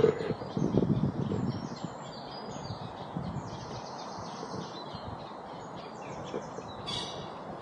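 Small birds chirping and singing over a steady outdoor hiss, with a louder chirp near the end. Duck quacking carries on into the first second or so.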